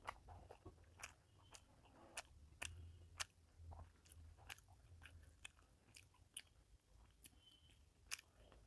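Faint mouth sounds of a person eating rice with fish curry: soft wet clicks and smacks of chewing, roughly one or two a second, over a low hum.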